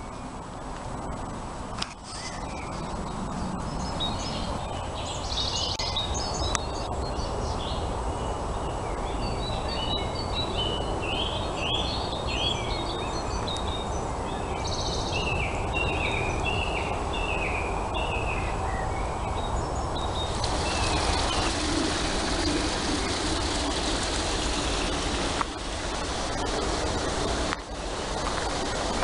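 A songbird singing a run of short, repeated chirping phrases in the woods. About two-thirds of the way in, the steady rushing of a small woodland stream takes over.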